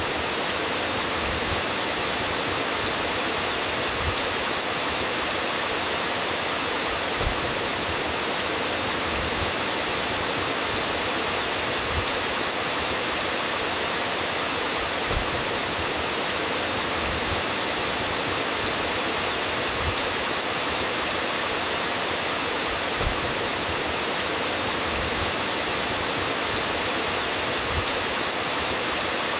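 Steady heavy rain falling, with a short low thud every few seconds.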